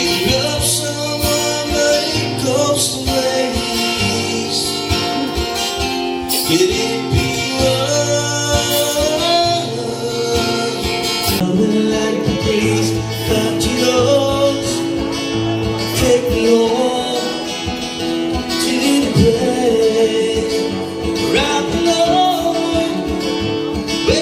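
Background song with singing over guitar and a steady bass line.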